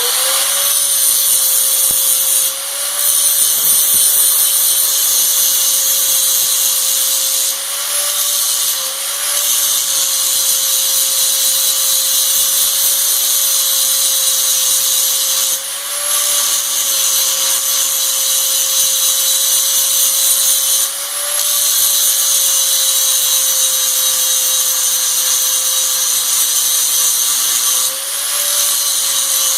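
Grinder running steadily with a high whine, grinding down fresh welds on steel with a hissing grind. About five times the grinding noise drops briefly and the whine rises a little as the disc comes off the metal.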